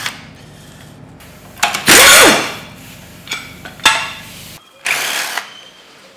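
Cordless drill-driver with a 10 mm socket spinning out the engine's sump bolts in short bursts. The loudest burst comes about two seconds in and another about five seconds in, with a few sharp metallic clicks between.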